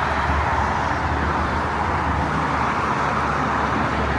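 Steady road traffic noise from cars moving along a highway.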